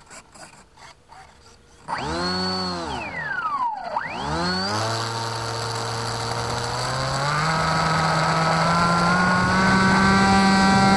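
Brushless electric motor and propeller of a small foam RC plane starting suddenly about two seconds in, its whine rising in pitch, dipping briefly, then climbing slowly and steadily as the throttle is opened for the take-off run.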